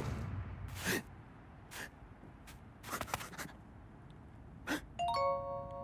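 Cartoon sound effects: a sharp knock with a brief low rumble, then several short breathy puffs a second or so apart. Near the end comes a bright chime of several held tones that enter one after another.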